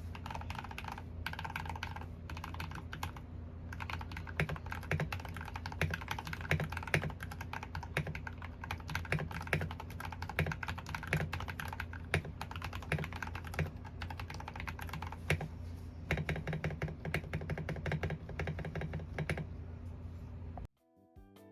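Typing on a CIY Tester 68 mechanical keyboard fitted with RK Red linear switches and PBT Cherry-profile keycaps: a fast, continuous run of keystroke clacks over a steady low hum. The typing cuts off near the end and music starts.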